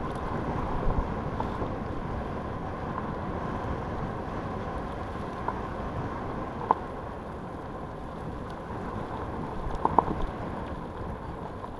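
Wind buffeting the camera microphone over the rumble of mountain bike tyres rolling fast down a dirt trail. A few sharp knocks stand out, about seven and ten seconds in.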